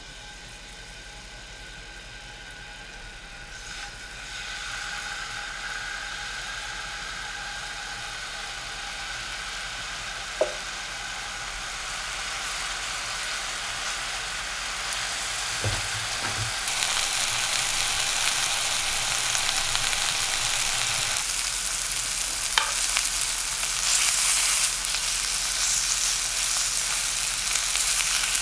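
Seasoned pork fillet pieces sizzling in hot olive oil in a frying pan. The sizzle grows louder in steps as more pieces are laid in, with a few sharp clicks along the way.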